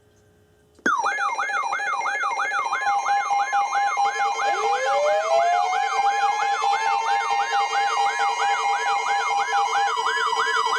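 Electronic alert sirens cut in sharply about a second in: a fast yelp sweeping up and down about three times a second over steady tones, joined from about four and a half seconds in by a second siren winding up in pitch and holding.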